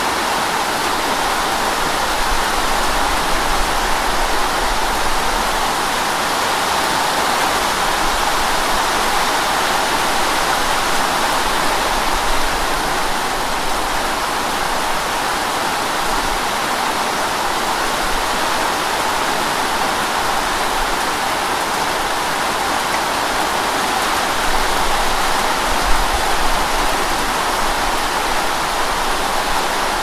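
Heavy rain falling in a steady downpour: a dense, even hiss of drops that holds without a break.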